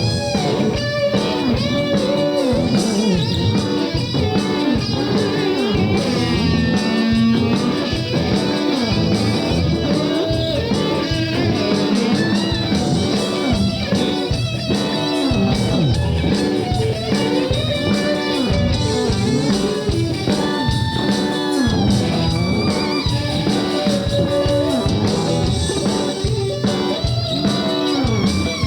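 Rock band playing an instrumental passage, led by electric guitar with bent, wavering notes over bass and a steady beat.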